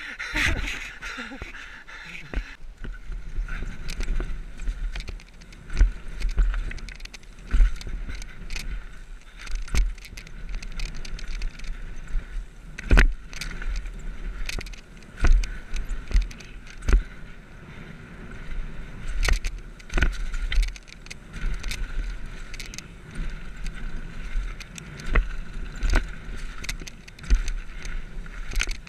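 Mountain bike descending a rough dirt and gravel trail at speed: wind rumble on the microphone under a steady hiss, with frequent irregular knocks and rattles as the bike hits rocks and roots.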